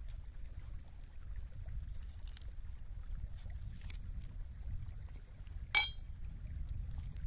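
A large kitchen knife set down on a rock with one sharp metallic clink that rings briefly, near the end. Before it come a few faint clicks of the knife cutting, all over a steady low rumble of wind on the microphone.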